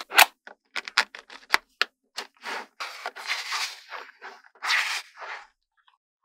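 Small magnetic metal balls snapping together in a quick run of sharp clicks, then a few seconds of clattering, scraping rattle as a large sheet of linked balls is bent and folded, going quiet about a second before the end.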